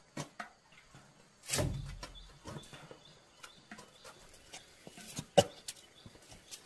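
Banana bunches being handled and set down: scattered knocks and rustles, with a heavier thud about a second and a half in and a sharp click past the five-second mark.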